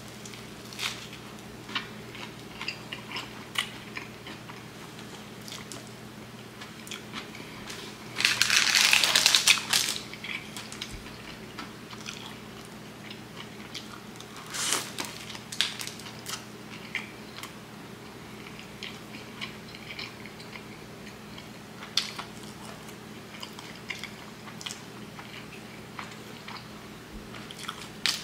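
Close-up biting and chewing of a toasted wheat-bread steak-and-cheese sub, with short crunches of the crunchy crust and mouth clicks throughout. There is a louder crunching burst lasting about two seconds roughly a third of the way in.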